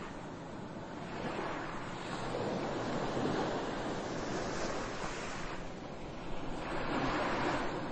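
A rushing, surf-like noise that swells and fades in several surges a couple of seconds apart.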